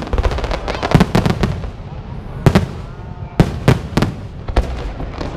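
Weco aerial fireworks display: shells bursting overhead in a steady run of sharp bangs, several in quick clusters, with the burst noise carrying on between them.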